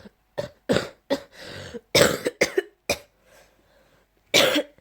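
A person coughing with phlegm in the throat: a quick run of about six coughs over two and a half seconds, then one more cough near the end.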